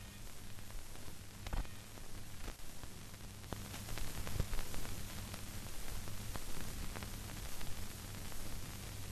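Hiss and crackle of an old film soundtrack over a low steady hum, with scattered faint clicks. The hiss grows brighter about three and a half seconds in.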